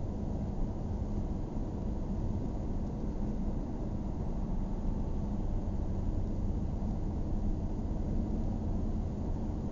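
A car driving at steady speed, heard from inside the cabin: an even low rumble of road and engine noise.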